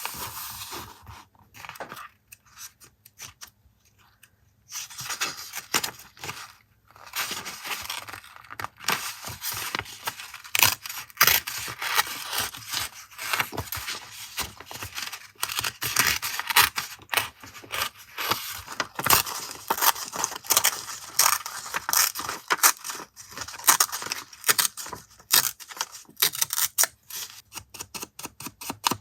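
Close-up paper and stationery handling for collage journaling: crisp rustling, scraping and many short crackly sounds, with a pause of a few seconds near the start.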